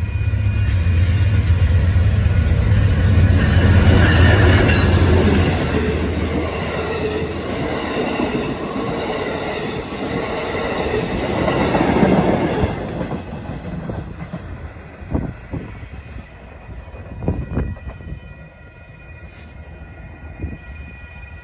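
Amtrak diesel passenger train passing at speed: a low engine hum as the locomotive goes by, then the rushing rumble of the passenger cars' wheels on the rails, which cuts off about 13 seconds in. After that it is quieter, with scattered knocks and a thin steady ringing from grade-crossing signals.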